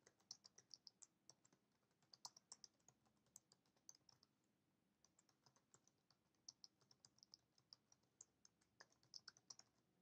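Faint typing on a computer keyboard: a run of irregular keystroke clicks, several a second.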